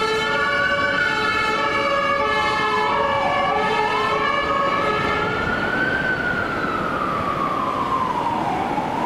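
Fire engine siren wailing slowly up and down, with an air horn sounding a steady multi-note blast over it that fades out about halfway through.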